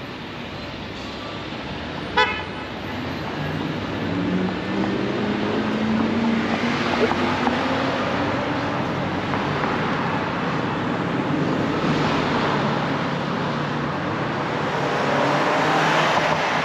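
City street traffic: a brief car horn toot about two seconds in, then a vehicle pulling away with its engine pitch slowly rising, under the steady road noise of passing cars that swells near the end.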